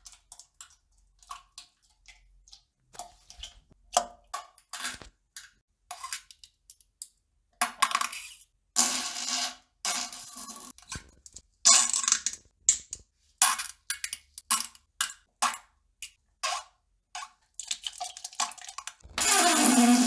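Sounds of a person defecating: an irregular run of short sputtering farts and splashes, some lasting about a second, with a longer, louder fart near the end.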